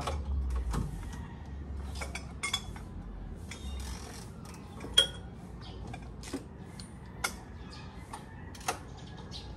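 Hand tools clicking and clanking on metal as a stuck engine bolt is worked with a wrench, with scattered sharp clicks and knocks, the loudest about five seconds in.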